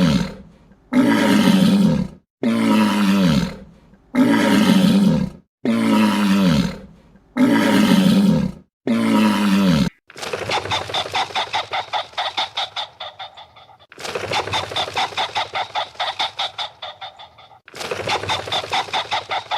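An animal calling six times, each call about a second and a half long and falling in pitch. It is followed by three long runs of fast, even clucking or honking pulses from fowl, about five pulses a second.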